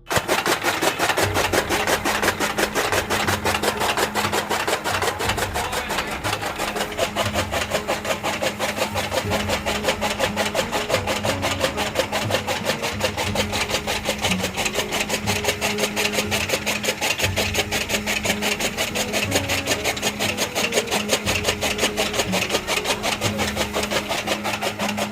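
Motor-driven chaff cutter running while fodder is fed through it: a steady hum under a fast, even clatter of the rotating blades chopping.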